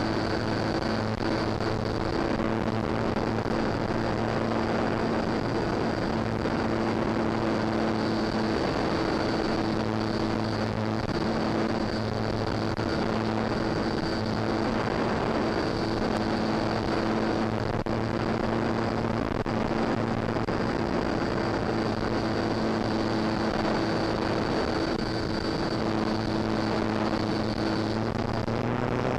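Electric motor and propeller of a Durafly Tundra RC plane running at a steady throttle in flight, heard from an onboard camera: a steady hum with a thin high whine, over rushing airflow noise.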